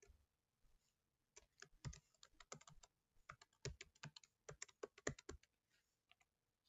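Faint typing on a computer keyboard: a quick run of key clicks from about a second and a half in until about five and a half seconds in, with a single click or two before and after.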